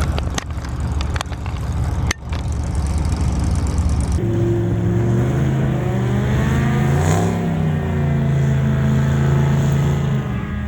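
Car engines at a drag strip. First a rough low rumble with a few sharp knocks, then an abrupt change to a steady engine drone whose pitch rises and falls about seven seconds in.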